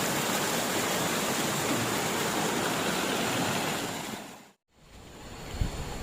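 Steady rush of flowing river water. It fades out about four seconds in and comes back quieter, with a few low thumps near the end.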